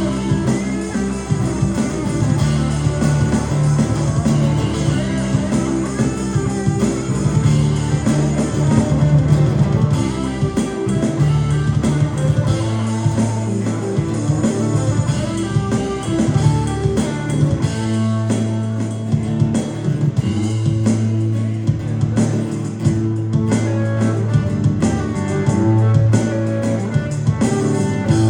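Live rock band playing: guitar over bass and a drum kit.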